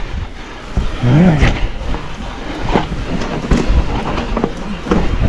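Mountain bike rattling down a rough enduro trail: tyres rumbling over rock and dirt with repeated sharp knocks and clatter from the bike. A rider lets out a short cry that rises and falls about a second in.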